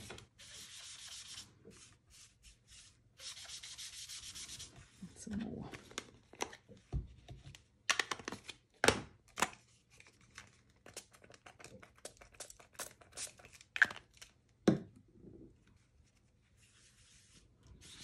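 A small sponge loaded with Distress Oxide ink rubbed and dabbed onto white cardstock, a scratchy rubbing in a few short stretches. In the middle comes a run of sharp clicks and taps as the spray bottle and sponge are handled.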